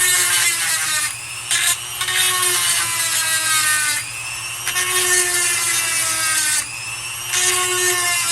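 Electric chainsaw sharpener's small motor whining, with its grinding stone rasping against the chain's cutter teeth in about four passes of one to two seconds each; the motor's pitch sags as the stone bites on each pass.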